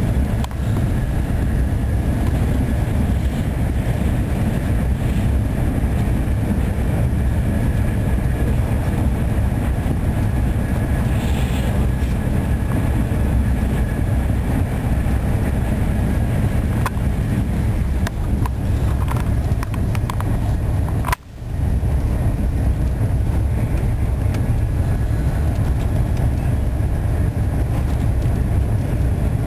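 Steady low rumble of a passenger train running at speed, heard from inside the carriage, with a faint steady high-pitched tone over it. The sound briefly cuts out about two-thirds of the way through.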